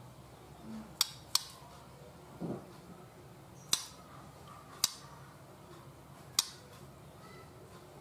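Young white-rumped shama in its cage: five sharp, isolated clicks at uneven intervals, with a soft low thud about two and a half seconds in.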